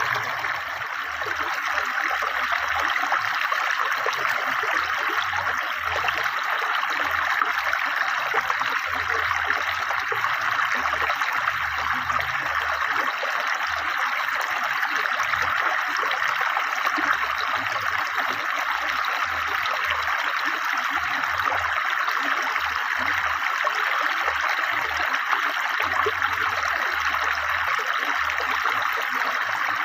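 River water flowing swiftly and steadily, an even rushing wash.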